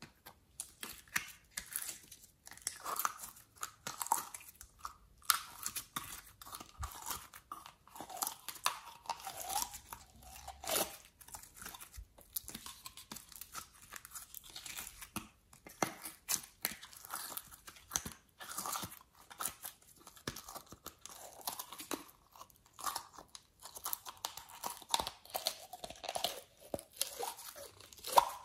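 Soft clay being pulled and torn out of small plastic bottles while the bottles are squeezed and handled: irregular crackling, clicking and squishing.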